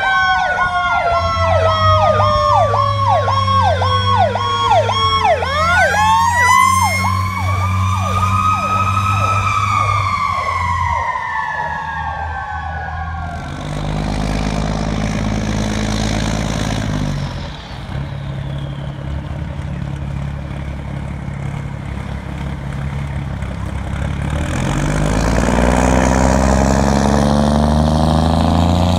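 Emergency-vehicle sirens sound for about the first half: a fast yelp, about two cycles a second, over a slow wail that winds down, rises again and falls. Then a fire engine's motor runs steadily, getting louder and rising in pitch near the end as the pumper pulls away.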